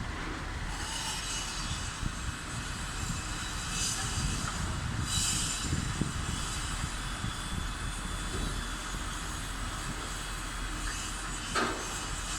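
Steady rushing and rumbling noise, swelling a few times, with a brief sharp sound near the end.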